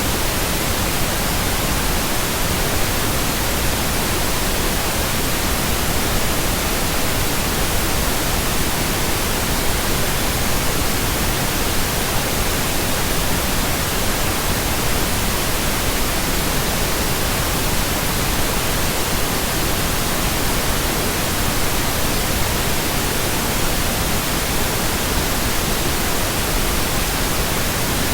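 Steady synthetic pink noise: an even, unchanging hiss spread across all pitches, with no tone, rhythm or event in it.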